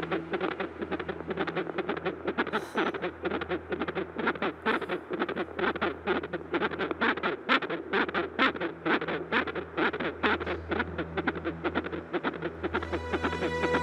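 Fetal heartbeat through an ultrasound machine's Doppler speaker: fast, even whooshing pulses, several a second, with background music underneath.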